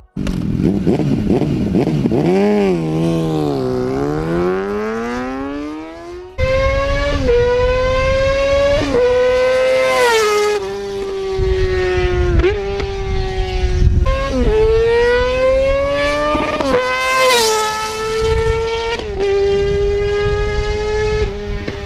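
Yamaha R6's 600 cc inline-four sport-bike engine revving hard. For the first few seconds the pitch swings down and back up; after that the bike accelerates near redline with a high, screaming note that climbs and drops sharply at each upshift, several times over.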